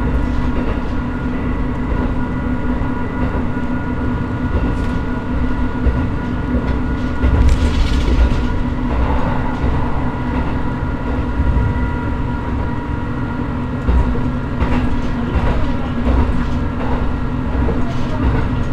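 Diesel railcar running along the track, heard from the cab: a steady engine drone with a constant whine, a brief louder rush of noise about seven seconds in, and wheel clicks over rail joints that come more often in the last few seconds.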